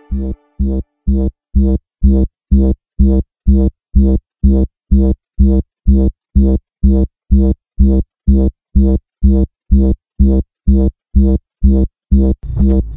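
Electronic background music: a steady synth bass pulse, about two and a half beats a second, with a short high tick on each beat.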